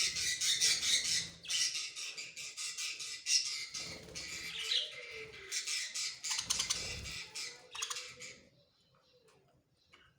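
Budgerigars chattering and squawking in a dense, rapid run of high chirps, which stops about eight and a half seconds in.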